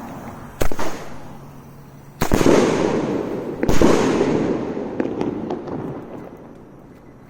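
Fireworks going off: three loud bangs about a second and a half apart, the second and third each trailing off over a couple of seconds.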